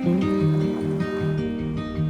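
Background music: an instrumental intro on acoustic guitar, before the singing comes in.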